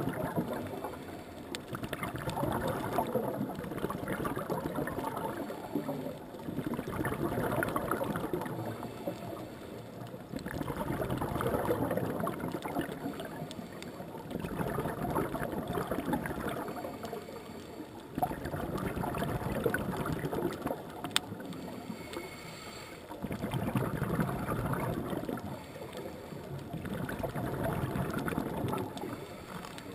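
Scuba regulator breathing underwater: exhaled bubbles burbling out in regular bursts about every four seconds.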